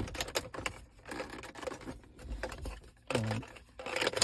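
Bicycle tire lever prying at a plastic dashboard trim panel: an irregular run of small clicks, taps and scrapes as the panel's clips are worked loose.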